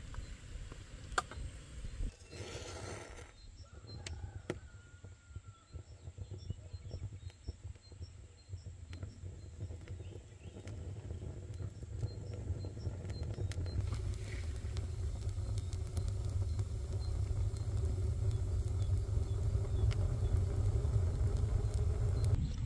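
Wood fire burning inside a tanoor oven: a low rumble that grows louder from about halfway through, with scattered crackles and snaps. Birds chirp faintly during the first half.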